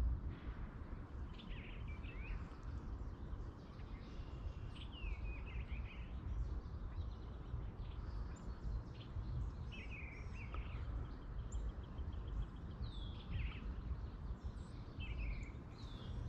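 Birds chirping and calling on and off, with short rising and falling chirps and a brief trill near the middle, over a steady low rumble.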